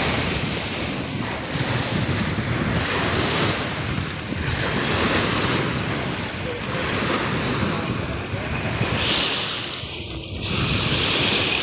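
Choppy lake waves breaking and washing onto the shore, the rush swelling and easing every second or two, with wind buffeting the microphone.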